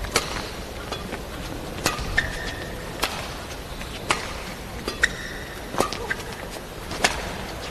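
A badminton rally: rackets striking the shuttlecock about seven times, roughly once a second, with short squeaks of court shoes on the floor between hits.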